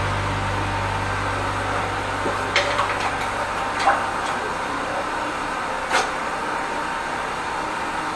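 High-pressure drain jetter running, its hose and turbo drill nozzle worked down a blocked toilet: a steady rushing noise with a few sharp knocks, the loudest about four seconds in and another at about six seconds. A low hum fades out over the first few seconds.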